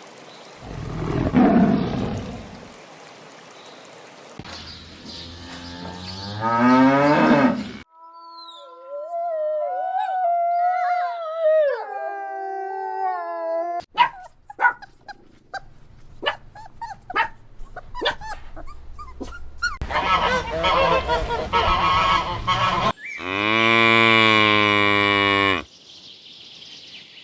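A string of different animal calls, one clip after another: a long, wavering howl-like call in the middle, a stretch of clicking and chattering, and a loud, steady low call near the end.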